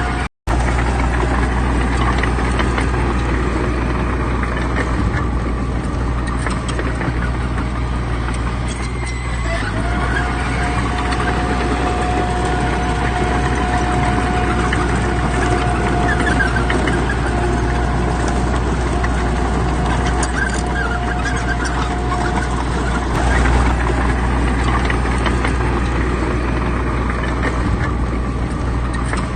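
Heavy diesel earthmoving machinery running steadily. A steady whine comes in about ten seconds in and stops several seconds before the end. The sound cuts out for an instant just after the start.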